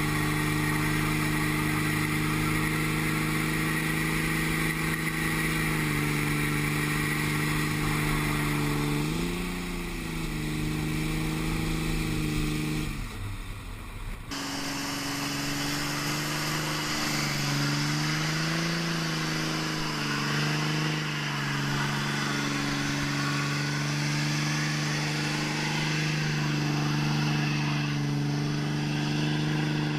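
Dodge Ram 2500's Cummins inline-six turbo-diesel held at high, steady revs during a burnout. The revs waver a couple of times, and the sound jumps abruptly about halfway through.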